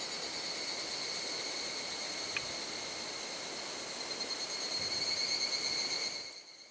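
A steady, pulsing insect trill over the even rush of a flowing river. The trill grows louder after about four seconds, a single click sounds about two seconds in, and both cut off sharply near the end.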